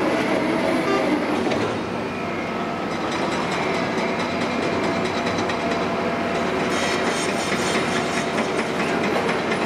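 Cat 352F hydraulic excavator with its Cat C15 diesel running as it travels and slews, its steel track chains clanking and squeaking over the ground with a steady whine; the rapid clatter grows more distinct in the second half.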